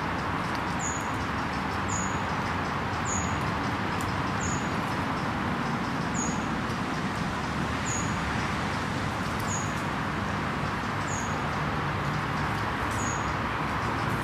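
Steady outdoor background noise, with a small bird's short, high call repeating about every one and a half seconds.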